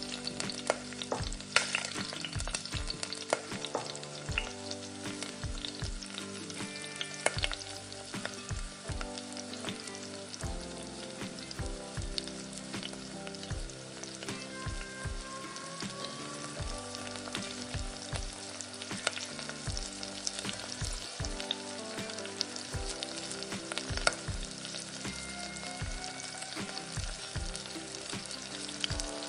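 Fennel seeds and dried red chillies sizzling in hot oil in a nonstick frying pan, stirred with a wooden spatula, with many small crackles and pops throughout.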